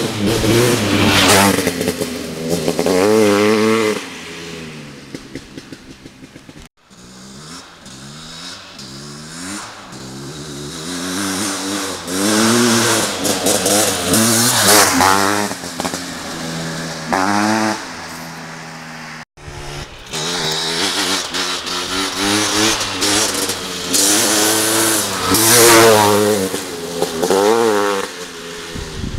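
Honda CR500's big single-cylinder two-stroke engine, through an FMF exhaust, being ridden hard: the pitch climbs and falls back over and over as the throttle is opened and shut, with a quieter, crackling stretch off the throttle early on. The sound cuts off abruptly twice.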